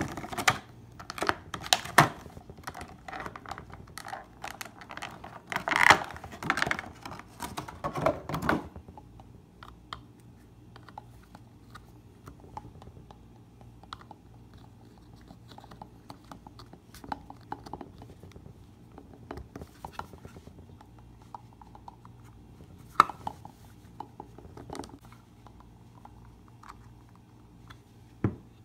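Clear plastic packaging insert crinkling and crackling as a vinyl figure is worked out of it, for about the first eight seconds. Then faint clicks and taps as the figure is fitted onto its plastic display stand, with one sharper click a little past twenty seconds in.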